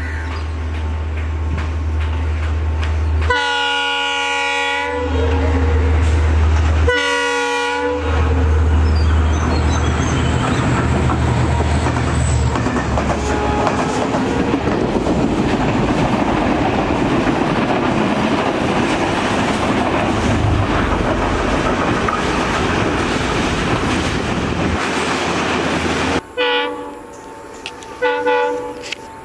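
Class M11 (WDG4D) diesel-electric locomotive running with a low engine drone as it approaches, sounding two long blasts of its multi-note horn a few seconds in. Its train of coaches then rumbles past with clattering wheels on the rails. Near the end another M11 sounds several short horn blasts.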